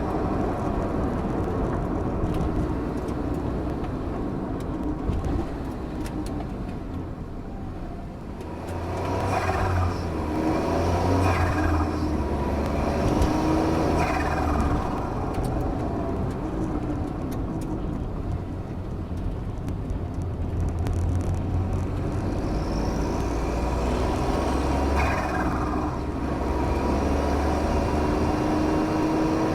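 Turbocharged work vehicle's engine running under throttle, the turbo whistle falling sharply in pitch each time the throttle is lifted, about five times, with blow-off/dump valve and turbo flutter noises.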